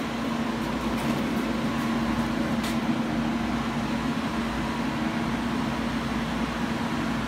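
Steady machine hum with a constant low tone, like a fan or motor running, and a couple of faint ticks.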